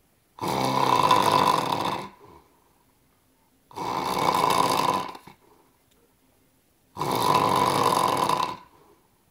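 Snoring: three long snores about three seconds apart, each lasting a second and a half, with near silence between them.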